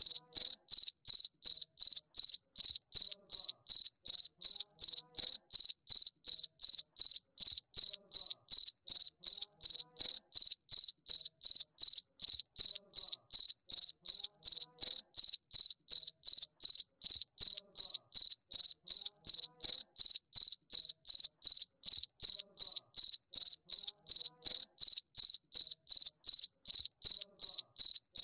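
Cricket chirping: one high-pitched tone pulsing very evenly, about three chirps a second, without a break.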